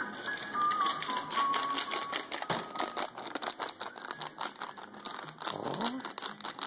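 Plastic dog-treat bag crinkling and rustling in a hand: a dense, irregular run of quick crackles.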